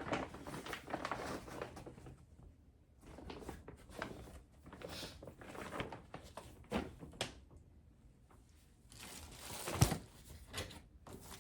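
Rustling and handling noises as packaged items are moved and unwrapped, with scattered light clicks and one sharp knock about ten seconds in.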